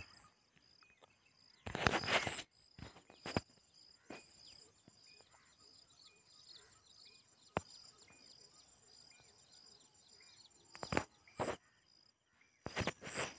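Field insects chirping, a steady high-pitched trill with short chirps repeating over it, broken by a few loud rustling bursts on the microphone about two seconds in and again near the end.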